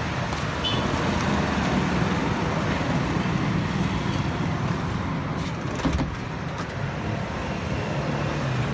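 Steady road traffic noise, with vehicle engines running, and a brief click about six seconds in.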